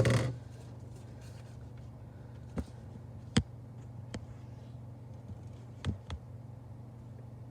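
Quiet room tone with a steady low hum and a few short, isolated clicks, the loudest about three and a half seconds in.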